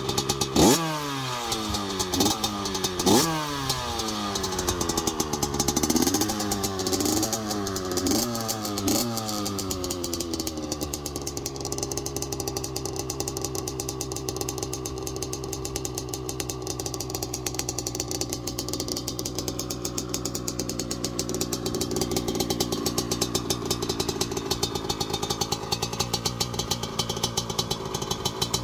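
Honda CR85's small two-stroke single-cylinder engine blipped hard twice, then given a quick run of smaller throttle blips. About ten seconds in it settles to a steady idle while warming up in the cold.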